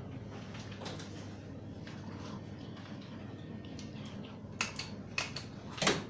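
Steady low hum with three short sharp clicks or knocks in the last two seconds, the last one the loudest.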